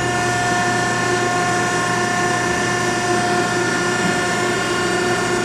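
Selco V5R vertical baler's 10-hp three-phase electric motor and hydraulic pump running steadily, an even mechanical hum with constant tones.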